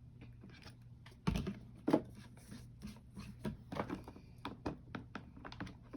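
Clicks, taps and knocks from a plastic slime container and glue bottle being handled, as glue is added and the slime mixed. There are two louder knocks a little over a second in and about two seconds in, then a run of quicker small clicks.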